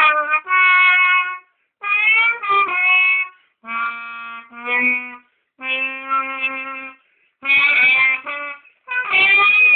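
A solo wind instrument playing a jazzy melody in short phrases of held notes, with brief pauses between the phrases.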